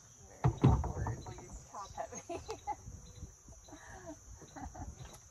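A kayak set down on the ground, landing with two quick thuds about half a second in.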